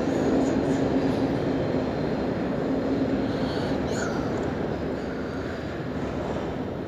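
Train running on the rails at a station, a steady rumble with a low hum that gradually grows quieter.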